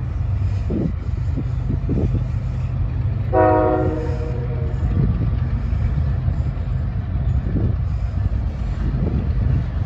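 Diesel locomotive's air horn sounding one short chord blast about three seconds in, over a steady low rumble from the approaching CSX train.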